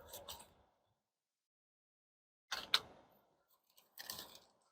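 Cardboard packaging being forced and torn open by hand: short crunches and sharp clicks in a few separate bursts.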